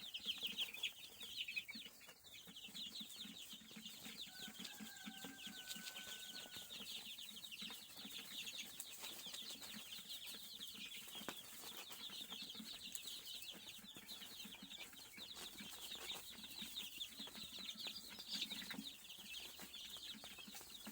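Many chicks peeping continuously, a dense mass of short high chirps, with a brief steady tone in the middle.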